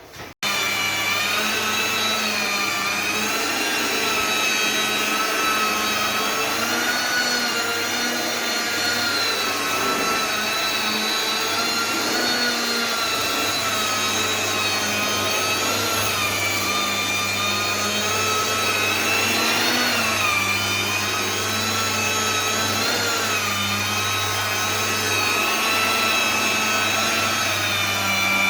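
Vacuum cleaner running continuously, switching on abruptly about half a second in. Its motor whine wavers slightly up and down in pitch over a steady low hum.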